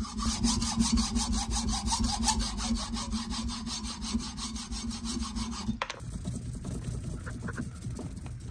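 A hacksaw cutting through the end of a wooden hammer handle in quick, even back-and-forth strokes. About six seconds in, the sawing stops and gives way to quieter, irregular handling sounds at a vise.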